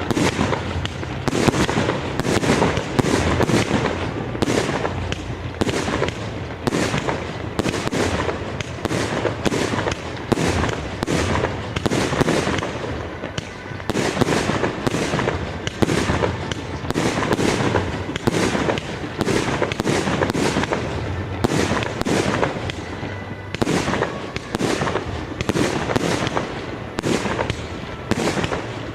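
Aerial fireworks display: a dense, continuous run of shell bursts, several bangs each second over a rolling rumble.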